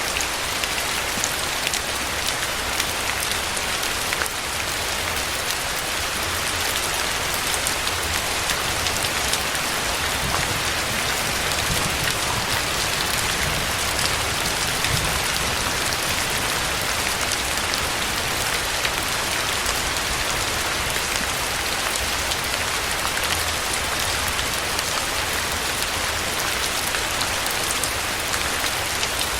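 Steady rain falling: an even, continuous hiss with scattered sharper ticks of individual drops.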